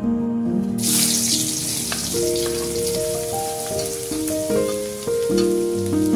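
Hot oil sizzling in a wok as chopped seasonings fry. The sizzle starts abruptly about a second in, under soft background music.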